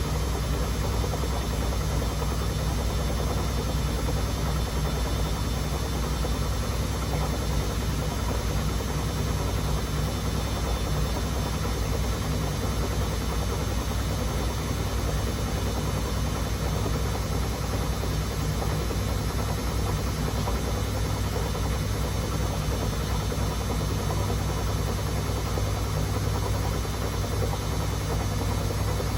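Beko WMD 46160 front-loading washing machine with its drum spinning steadily at high speed: an even, unbroken low hum and whir with no pauses or tumbling rhythm.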